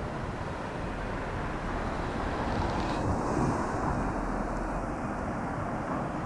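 Street traffic noise with an Enoden tram approaching slowly on street-running track, swelling a little about halfway through.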